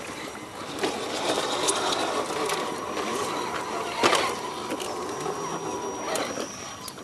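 Electric motors and gearboxes of RC scale crawler trucks whining as they crawl over rock, with the tyres and chassis ticking and knocking on stone; one sharp knock stands out about four seconds in.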